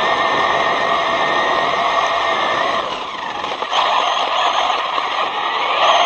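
Brushless electric motor and drivetrain of a ZD Racing Pirates 2 RC car whining at speed. The whine falls in pitch and softens about halfway through as the throttle eases, then climbs again near the end.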